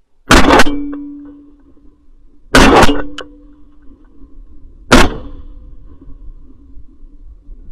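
Three shotgun shots about two seconds apart, fired at flying wood pigeons and heard from a camera mounted on the gun. Each is a very loud crack that trails off over about a second.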